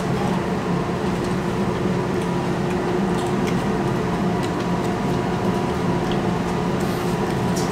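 Steady mechanical hum of a small restaurant's room tone, with a few light clicks and taps scattered through it.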